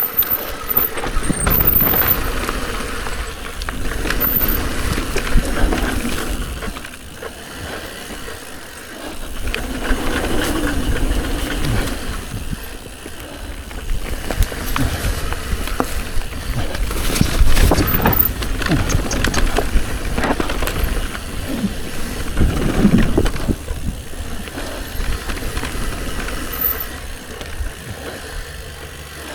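Mountain bike riding a rough dirt trail: tyres rumbling over the ground and the bike rattling and knocking over bumps, with wind buffeting the microphone. The rider is breathing hard.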